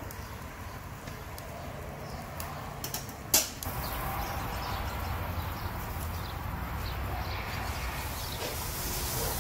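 Outdoor background noise: a steady low rumble and hiss, with a single sharp click about three and a half seconds in.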